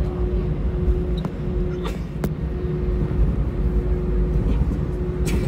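Steady low rumble inside the cabin of an Airbus A320 taxiing, its IAE V2500 engines running at low power, with a faint steady hum that comes and goes. A few sharp light knocks sound through it.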